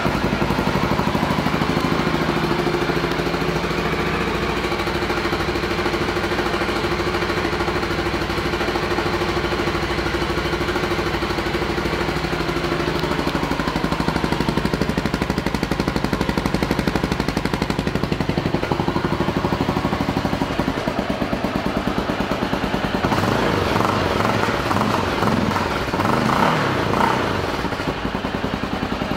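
Honda XR650L's air-cooled single-cylinder four-stroke engine running at idle with a steady note, turning more uneven over the last few seconds.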